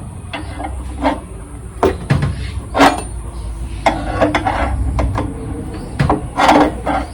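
Car jack being worked by its handle to lift a car, giving a series of irregular metal clanks and knocks, some with a short ring.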